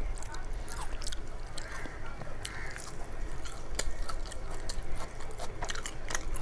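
Close-miked eating sounds: wet chewing and lip smacks with frequent sharp clicks, as soft khichdi and fried fritters are eaten by hand.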